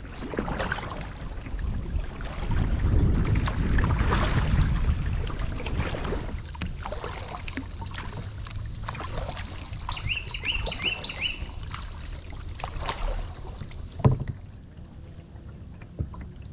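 Kayak paddle strokes splashing and dripping in the water, with wind rumbling on the microphone early on. A bird gives a quick series of short chirps about two-thirds of the way through, and there is a single sharp knock near the end.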